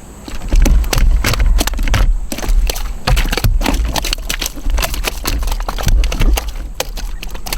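A smallmouth bass thrashing and flopping while being handled: a quick, irregular run of knocks and rattles against hard plastic and hands, starting about half a second in, over a low rumble.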